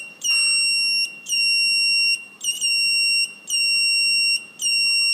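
Pulse-checker circuit's buzzer beeping, one high steady tone about once a second, each beep lasting most of a second. The beeps follow the comparator output, sounding with each heartbeat picked up through the finger.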